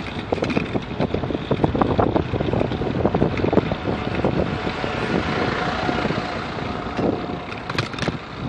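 Wind buffeting the microphone of a camera on a moving bicycle, with frequent knocks and rattles as the bike rolls over the paved path, over road traffic alongside. The rattling eases off about halfway through as the bike slows, with a few sharp clicks near the end.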